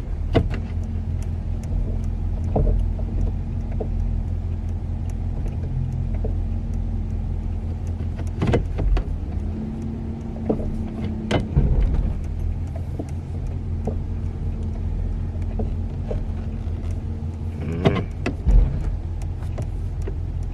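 A 1984 Pontiac Parisienne wagon running at idle, heard from inside the cabin as a steady low hum with a faint steady whine. Occasional short clicks and knocks come from inside the car.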